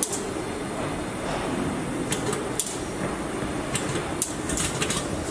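Car assembly-line factory floor: a steady machinery hum, with scattered sharp clicks and clacks of tools and parts being handled, several of them close together near the end.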